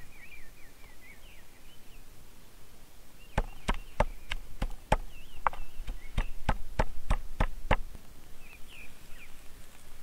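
Wooden pestle pounding garlic and parsley in a wooden mortar: about fifteen sharp knocks over four seconds, starting about three seconds in. Birds chirp in the first second or so and again near the end.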